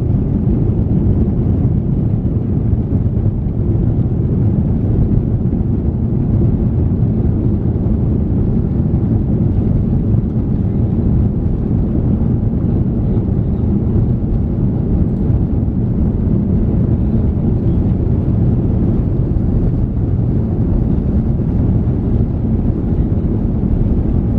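Airbus A350-900's Rolls-Royce Trent XWB engines at takeoff power, heard inside the cabin as a steady low rumble with runway noise during the takeoff roll.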